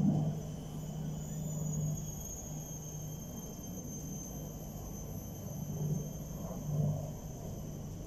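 Low rumble of a vehicle engine, swelling briefly at the start and again twice near the end, with a faint steady high-pitched whine above it.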